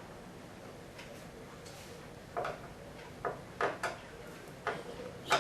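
Light clicks and knocks, about six of them irregularly spaced in the second half, the last the loudest: hands working on a TV's stand leg and its screw.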